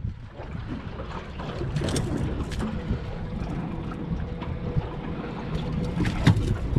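Wind rumbling on the microphone in a small aluminium fishing boat, with a few sharp clicks and knocks about two seconds in and again near the end as fishing pliers work a hook out of a tuna's mouth.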